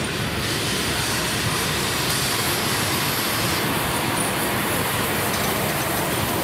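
A steam locomotive rolling past on the tracks, giving a steady running noise of wheels and running gear with no distinct exhaust beats.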